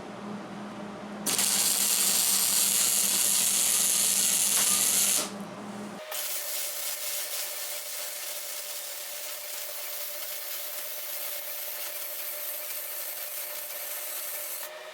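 Metalworking on a steel angle-iron frame: a loud, even hissing burst about a second in that lasts about four seconds, followed by a quieter steady noise with a faint hum.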